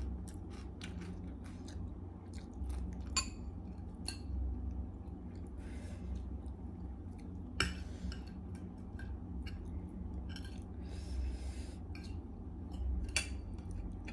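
A person eating close to the microphone: chewing and mouth noises, with a few sharp clinks of a metal spoon against a bowl, over a steady low hum.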